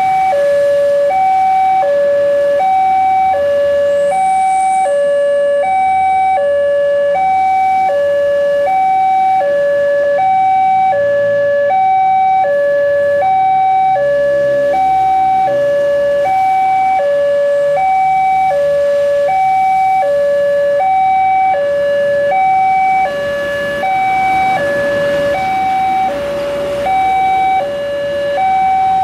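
Railway level-crossing warning alarm sounding: an electronic two-tone signal alternating evenly between a higher and a lower pitch, about one high-low cycle a second. It means the crossing is closed for an approaching train.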